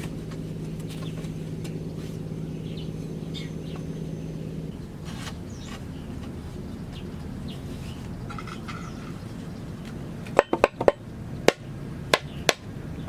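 A machete chopping bamboo: about seven sharp strikes in quick clusters near the end. Earlier, a steady low hum stops about a third of the way in.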